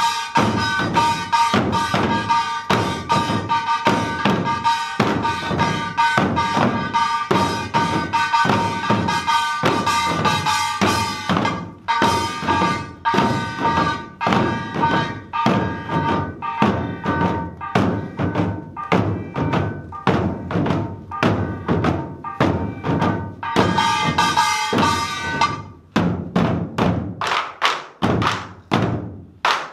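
Korean buk barrel drums struck together in a fast, steady beat by a drum-dance troupe, with a small metal gong ringing along over them. The gong drops out near the end, leaving only the drum strokes.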